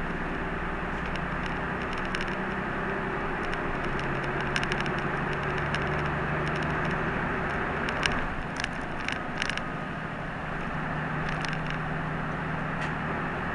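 Route bus heard from inside the cabin: the engine and road noise run steadily, the engine's pitch shifting a little partway through, with scattered clicks and rattles from the cabin fittings, a cluster of them a little after the middle.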